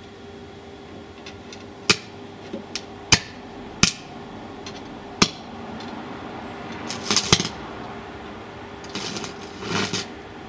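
Arc welder's electrode being struck against a circuit-board chip: a series of sharp cracks, then two crackling bursts of arcing, about seven and nine to ten seconds in, over a steady low hum.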